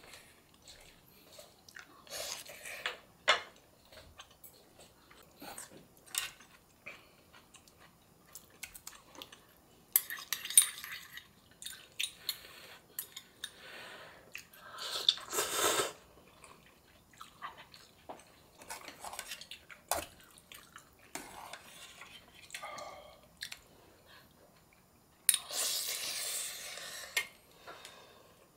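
Wooden chopsticks and a wooden spoon clicking and scraping against an aluminium ramen pot and a ceramic bowl as ramen noodles are dished up and eaten, with three longer, louder wet stretches of noodles being lifted and eaten.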